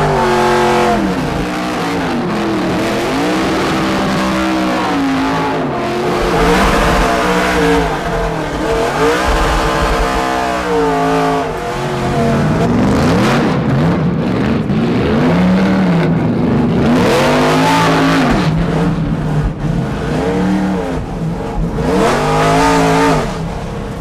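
Race car engine heard from inside the stripped cabin, loud, repeatedly revving up as the car accelerates and dropping back as the driver shifts or lifts off.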